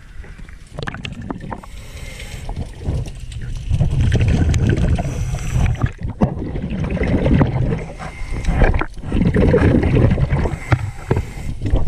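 Underwater breathing noise from a scuba diver: low bubbling rumbles of exhaled air swelling every few seconds, with quieter stretches between.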